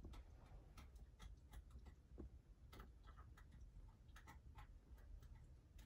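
Near silence: low room tone with faint, irregular small clicks.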